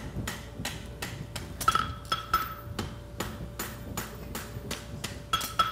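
Farrier's hand hammer striking a red-hot steel horseshoe branch on an anvil, about four blows a second, drawing out and shaping the heel. Now and then a blow leaves a short metallic ring.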